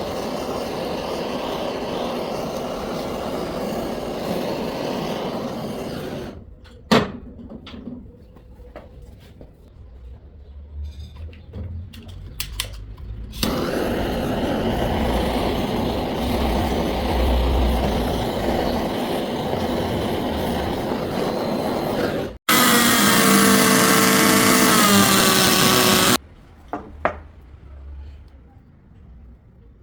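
Power tools working wood, running in several stretches with quieter gaps of knocks and clicks between them; near the end a louder tool with a steady whine runs for a few seconds and cuts off suddenly.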